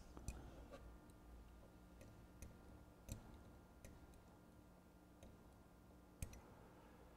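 Faint, scattered clicks and ticks of metal picks prying at the tight retaining clip on a Beta VCR reel spindle, the sharpest a little after three seconds in and near six seconds, over a faint steady hum.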